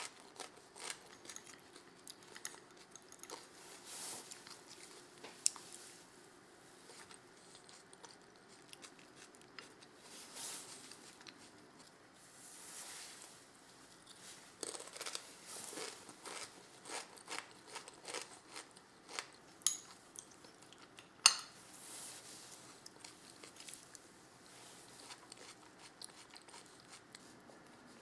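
Food-preparation sounds: scattered crunching with small clicks and clatters, and one sharp knock about three-quarters of the way through.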